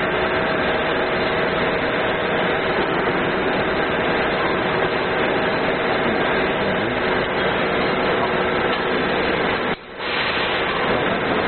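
Steady workshop machinery noise, a dense mechanical drone with a faint hum in it, dropping out briefly near the end.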